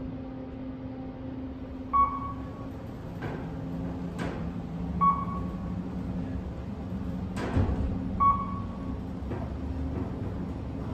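Kone EcoDisc machine-room-less elevator cab travelling up one floor: a steady low hum, three short electronic beeps about three seconds apart, and a few sharp clicks.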